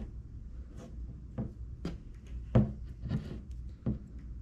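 Handling sounds as twine is pulled tight around the metal head of a homemade bamboo-pole flounder gig: a few scattered short knocks and rubs, the loudest about two and a half seconds in, over a low steady hum.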